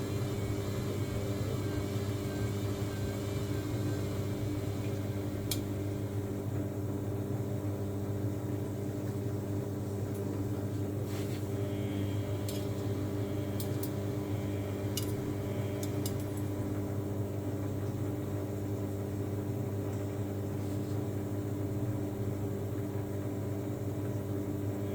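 Samsung washing machine running with a steady motor hum, and a few light clicks in the middle.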